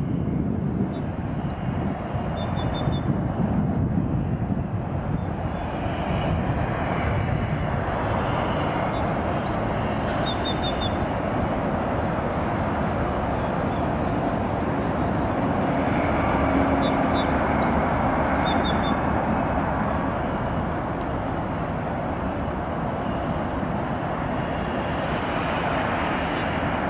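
Freight train rolling slowly through a rail yard: a steady rumble of passing freight cars, with brief high chirps now and then.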